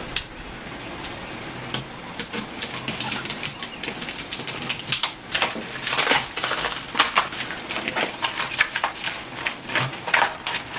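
Plastic bubble wrap crinkling and crackling as it is slit open and peeled back by hand, in quick irregular crackles that grow busier from about two seconds in.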